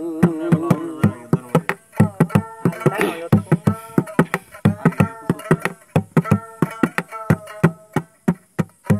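Instrumental interlude of a Bengali folk song: a melody instrument plays a line over quick, even hand-drum beats, about four a second.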